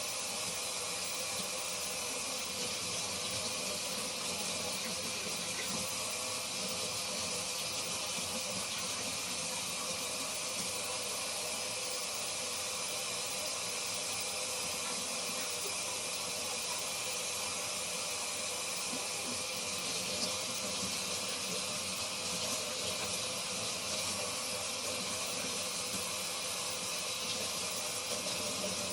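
Tap water running steadily into a sink while makeup brushes are washed: an even, unbroken hiss.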